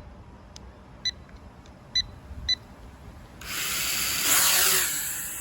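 Three short electronic beeps about half a second to a second apart, then about three and a half seconds in the DEERC D20 mini drone's motors spin up with a sudden whine and propeller whoosh as it takes off again after a crash.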